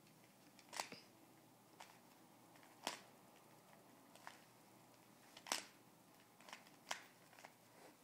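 Rubik's cube being turned by hand: short, sharp plastic clicks as its layers snap round, about eight of them at uneven intervals.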